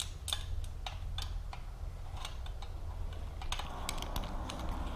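Scattered light clicks and taps of small metal hardware being handled and fitted by hand as a heat shield goes onto a motorcycle exhaust mid-pipe.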